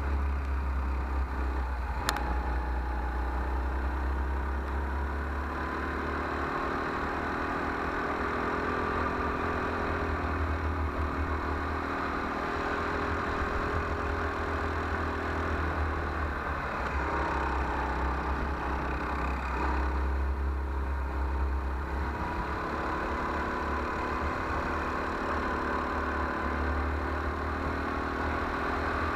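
Go-kart engine heard from a camera mounted on the kart, running continuously with its pitch rising and falling as the driver accelerates and lifts through the corners, over a steady low rumble from wind and vibration.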